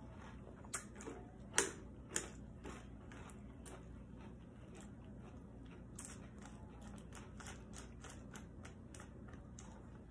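Crunchy Drumstick cereal in milk being chewed, with a metal spoon clicking and scraping against a ceramic bowl; a few sharper clicks stand out in the first couple of seconds.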